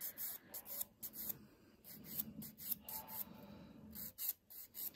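A hand nail file rasping on a fingernail in short, irregular, quiet strokes.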